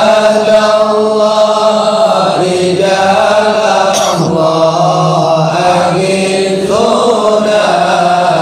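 Voices chanting an Arabic devotional chant together, the syllables drawn out in long held notes that break and start again every second or two.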